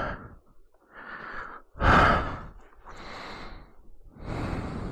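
A man breathing close to the microphone: several hissy breaths in and out, about a second apart, the loudest about two seconds in.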